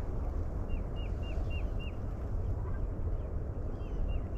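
Steady low wind rumble on the microphone, with a bird giving two quick runs of short, falling chirps, about five a second, about a second in and again near the end.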